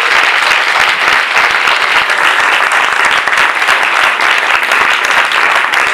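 A crowd applauding: many hands clapping at once in a dense, steady round of applause.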